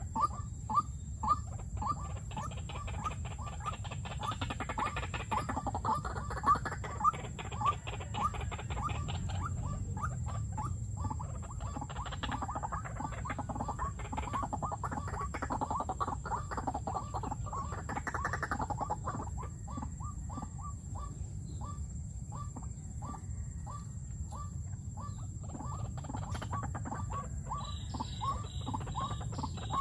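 White-breasted waterhens calling: a long run of short repeated croaking notes, about two to three a second, with a few louder calls near the start and around seven seconds in, and brief pauses between bouts.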